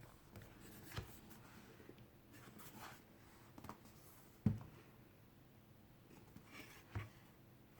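A DVD box set being handled and turned over in the hands: faint rubbing and scraping with three soft taps, the loudest about halfway through.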